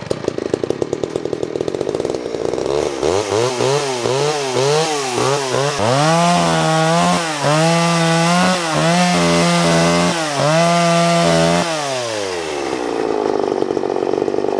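A vintage Homelite 240 two-stroke chainsaw just after starting. It idles roughly, then revs up and down a few times and runs at high revs while cutting through a log, its pitch dipping briefly now and then under load. About twelve seconds in, the revs fall back to a steady idle.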